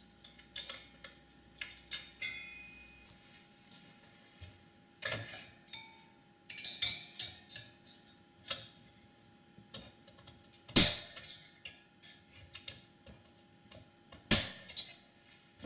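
Irregular clicks, taps and knocks of a finned metal CPU heatsink being handled and fitted onto a Power Mac G4 Sawtooth motherboard, with two sharper knocks in the second half.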